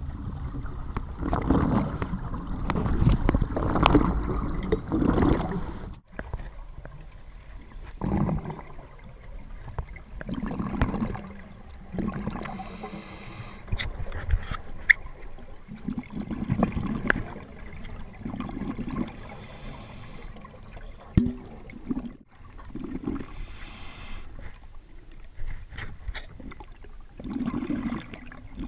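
Scuba diver breathing on an open-circuit regulator underwater: irregular bursts of exhaled bubbles, with a short hiss from the regulator on each breath in, every few seconds.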